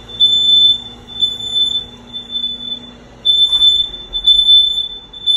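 Smoke alarm sounding: a loud, high-pitched electronic beep repeating about once a second, each beep about half a second long.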